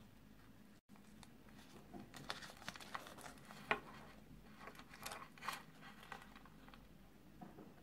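Crinkling and crackling of a small plastic Kinder Surprise toy wrapper as fingers pick it open: a string of quick crackles through the middle, with one sharper snap about halfway.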